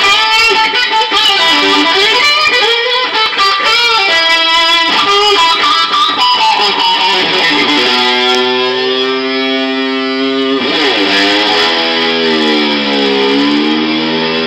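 Les Paul-style electric guitar played through an amp: a run of quick lead notes, then long sustained notes, several bent down and back up in pitch near the end.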